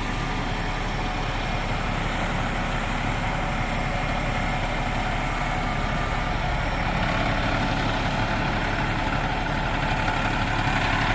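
Truck crane's engine running steadily with the PTO engaged to drive the crane, getting slightly louder toward the end.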